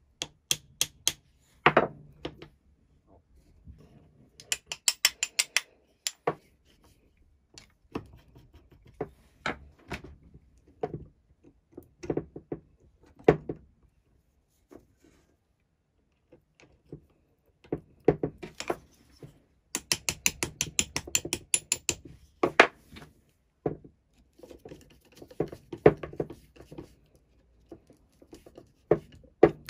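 Small steel parts of a pipe cutter being reassembled by hand: sharp metal taps of a small hammer driving roller axle pins home, between handling clicks and rattles. Twice there is a burst of fast, even clicking of about a second and a half.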